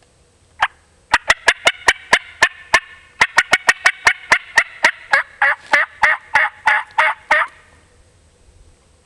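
Hand-operated turkey call run in a rapid series of sharp yelps and clucks: a single note, a quick run of about ten notes, a short pause, then a longer run whose notes grow longer and further apart before it stops. It is a hunter's calling sequence meant to draw a gobbler into answering.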